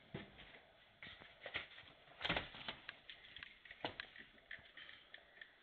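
A large paper map being handled and opened: irregular rustling and crackling of stiff paper, loudest about two seconds in.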